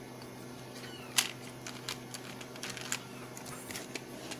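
Light plastic clicks and taps as plastic auto-darkening welding goggles are handled and fitted together, with the sharpest click about a second in and a few more spread out after it.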